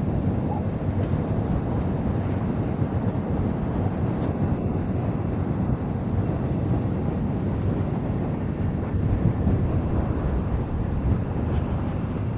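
Strong wind buffeting the microphone in a steady low rumble, mixed with the engine noise of a jet airliner landing.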